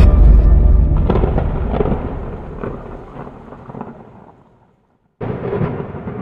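Thunder-like boom sound effect: a loud deep boom that rumbles and crackles away over about four seconds, drops out, then a second boom about five seconds in, also fading.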